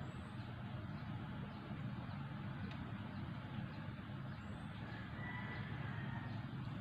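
Steady low drone of a distant boat engine on the river, with a faint high chirp twice.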